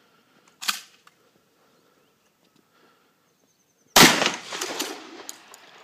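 A sharp clack about half a second in, then one loud shotgun shot about four seconds in that echoes and fades slowly, followed by a few light clicks.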